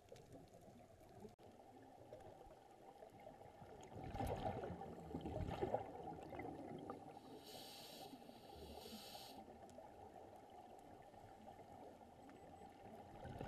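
Faint, muffled underwater noise picked up through a waterproof camera housing on a scuba dive, with a gurgling burst of exhaled regulator bubbles about four seconds in and again at the end. A short hiss comes a few seconds after the first burst.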